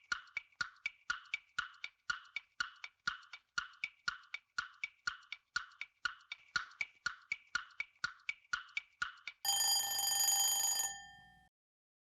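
Quiz countdown timer sound effect ticking steadily, about four ticks a second, with alternating tick-tock pitches. Near the end a steady buzzer-like ring lasts about a second and a half, signalling that time is up.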